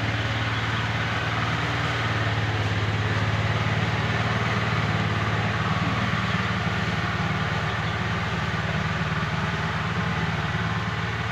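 Steady low mechanical hum, like an engine idling, with an even hiss over it.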